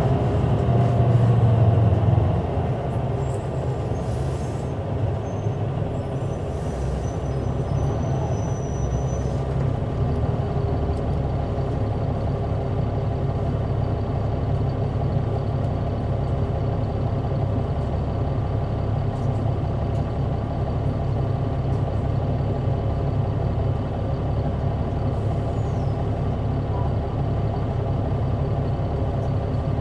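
Caterpillar C9 diesel engine of an articulated Neoplan AN459 transit bus, heard from on board. It is louder for the first two seconds, then drops to a steady, even running, with a couple of brief faint hisses.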